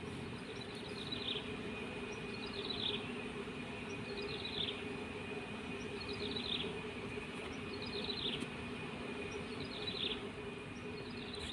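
Outdoor animal calls: a short chirp falling in pitch repeats about every two seconds, over a steady high tone and a low hum.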